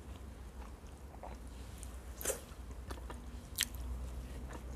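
A person eating with her fingers close to the microphone, with soft chewing and wet mouth clicks and one sharper click about three and a half seconds in.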